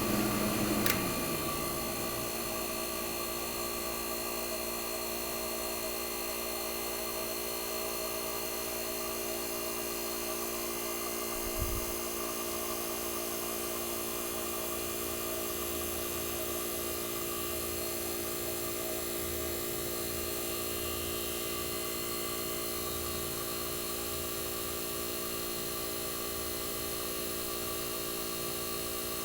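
1965 Fedders Weather Wheel 12,000 BTU air conditioner running: steady hum of its reciprocating compressor with its evaporator fans, heard close up. The condenser fan motor is out, so only the evaporator fans are turning. A short click about a second in and a single low bump near the middle.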